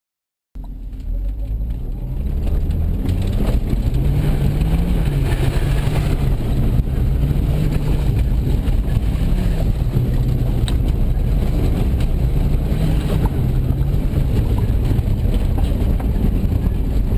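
A car engine running, its pitch rising and falling a little, over a steady low rumble; the sound cuts in suddenly about half a second in.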